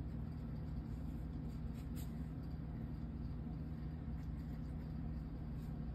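Steady low hum of room background noise, with a few faint soft ticks and scrapes from a watercolour brush working wet paint on paper.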